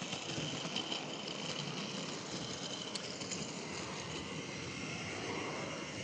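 Model locomotive running along a model railway track, a steady running noise from its small motor and wheels on the rails.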